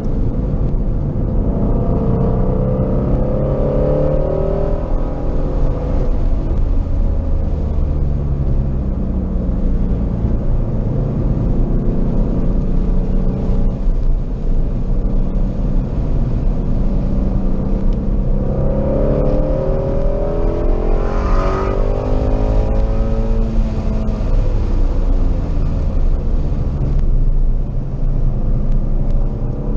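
Car engine running hard on a race track, heard from inside the cabin, its revs climbing steeply and falling away again several times as it powers between corners.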